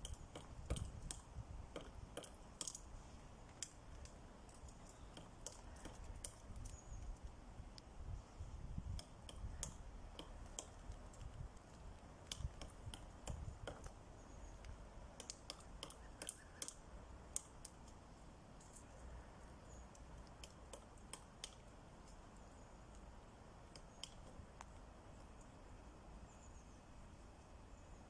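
Black woodpecker pecking and chipping at a tree trunk: faint, irregular sharp taps, thicker in the first two-thirds and sparser near the end, over a low rumble.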